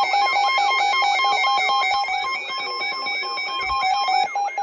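Emergency Alert System attention signal: a steady two-tone alarm with a fast, repeating up-and-down sweeping tone laid over it, about three sweeps a second, cutting off near the end. It is the signal that an emergency alert message follows.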